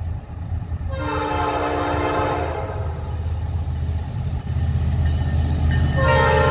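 Norfolk Southern diesel freight locomotive's air horn sounding for a grade crossing: one long blast of about two seconds, then a second blast starting near the end, over the steady low rumble of the approaching locomotives' diesel engines.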